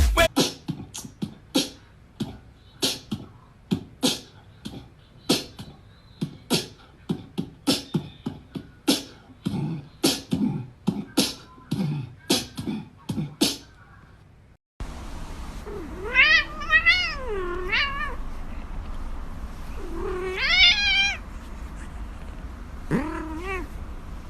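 A run of sharp clicks or taps, irregular at about two a second, then a cat meowing three times in long wavering calls over a steady low hum.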